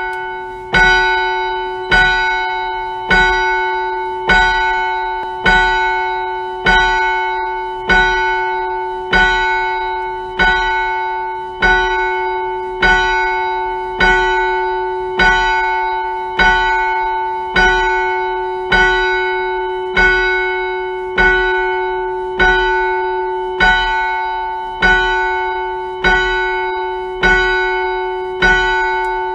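A single church bell rung at one pitch, struck evenly about once every 1.2 seconds, each stroke ringing on into the next.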